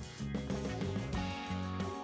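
Background music: a guitar-and-drums instrumental track.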